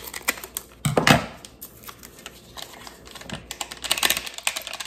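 Scissors snipping open a small packet of baking powder, with crackling of the packet, a run of sharp clicks and a stronger burst about a second in. Near the end the packet rustles and crackles as it is shaken out over a bowl of flour.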